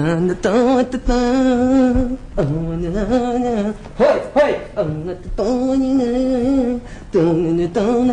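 A man singing unaccompanied, in about six short phrases that each end on a long, wavering held note.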